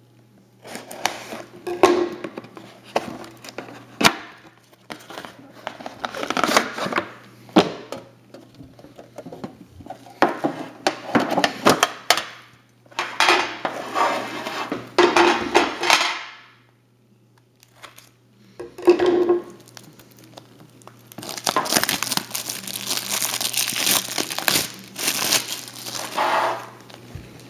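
Packaging of a sealed hockey-card box being crinkled and torn open by hand, in irregular bursts with sharp clicks and short pauses.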